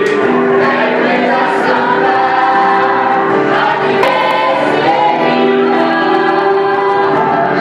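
A group of voices singing a Christian worship song together, holding long sustained notes.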